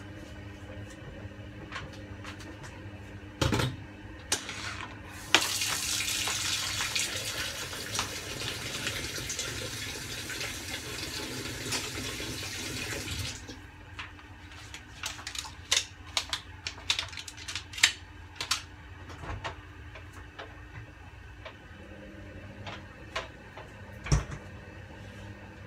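A water tap running for about eight seconds, starting a few seconds in and stopping sharply, followed by a scatter of small clicks and knocks; a dull knock near the end.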